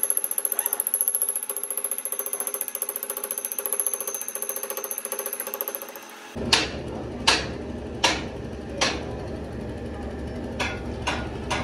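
A rapid, even mechanical ticking with a steady high whine, then, after an abrupt cut about six seconds in, a series of sharp knocks. Four strong knocks come just under a second apart, then three lighter ones near the end.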